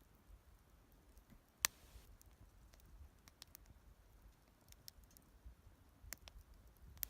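Faint wood fire crackling: scattered sharp pops and clicks, two of them louder, about a second and a half in and near the end.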